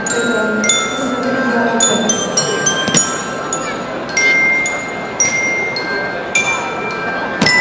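Slow instrumental music with bell-like struck notes that ring on, one after another, over a softer lower line.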